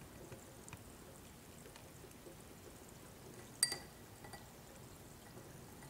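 Faint bubbling of hydrogen gas from a diffusing stone in a glass of water. One sharp, ringing glass clink comes about three and a half seconds in as the stone and tubing knock against the drinking glass.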